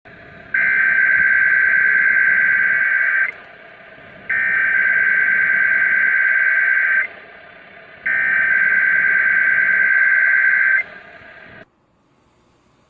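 NOAA Weather Radio SAME header for an Emergency Alert System Required Weekly Test: three identical bursts of digital data tones, each about two and a half seconds long with about a second between them. They play over radio hiss, which cuts off about a second after the last burst.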